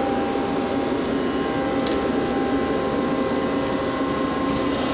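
Hardinge Conquest T-42 CNC lathe running with a steady hum while its B-axis (sub-spindle slide) is jogged, the axis itself quiet; faint ticks about two seconds in and near the end.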